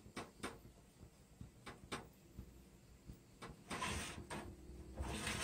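A few light metallic clicks as the door of an aluminium stovetop oven is unlatched and opened, then a metal baking tray sliding out over the oven rack, metal on metal, starting a little under four seconds in.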